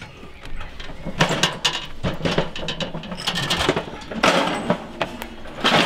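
Clattering and knocking of a Broil King Porta Chef 320 camping gas grill being turned over and set upright on its clipped-in metal legs: a run of rattles and knocks, with louder clusters about a second in, past the middle and near the end.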